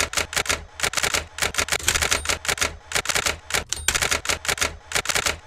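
Typewriter keys clacking in a rapid, steady run of strikes as text is typed out.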